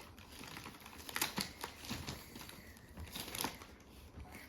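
Faint, scattered light clicks, taps and rustles from a just-unwrapped present's packaging being handled, with a few sharper taps about a second in and again near three seconds.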